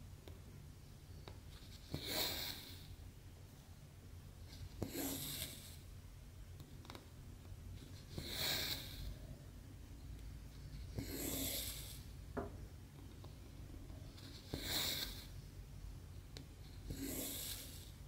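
Cross-stitch thread being pulled through 14-count Aida cloth: six short rasping swishes, about one every three seconds, as each stitch is drawn tight, with faint ticks of the needle piercing the fabric between pulls.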